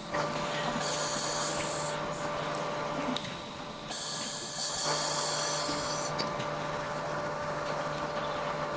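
Handheld laser welding machine running: a steady machine hum with a constant tone, overlaid by stretches of high hissing noise about a second in and again from about four to six seconds.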